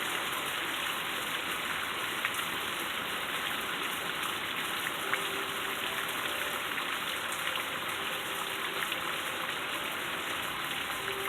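Heavy rain pouring down in a steady hiss, with individual drops ticking through it.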